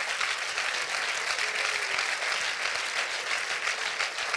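Church congregation applauding, a dense, steady clapping.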